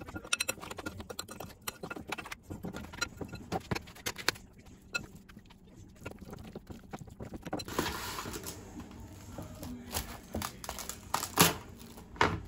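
Small objects being handled: irregular light clicks and taps with some rustling, busier and louder over the last few seconds.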